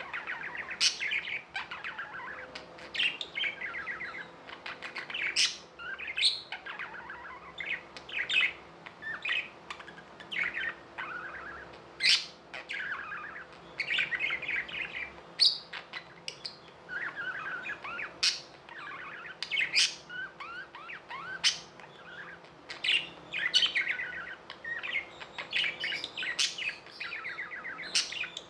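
Pet budgerigars chattering: a continuous scratchy warble broken by sharp, high chirps every second or two.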